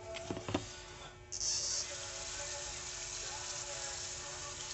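Two light knocks, then a kitchen tap turned on about a second in, water running from the faucet in a steady hiss after a brief louder gush.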